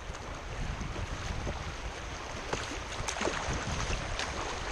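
River water rushing and splashing around the bow of a plastic whitewater kayak running a shallow riffle: a steady rush with a low rumble under it and many small, quick splashes.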